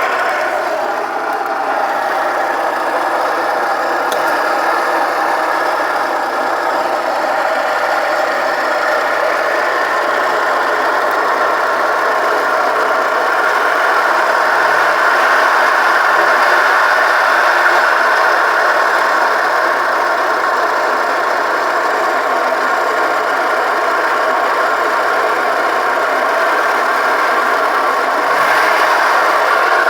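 Volkswagen Golf Mk3's 1.8-litre, 75 hp four-cylinder petrol engine running steadily with a terrible-sounding strange noise whose cause is unknown.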